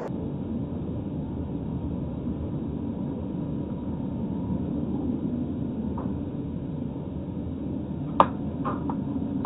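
Steady low rumble of a vehicle, with a sharp click a little over eight seconds in followed by a few fainter ones.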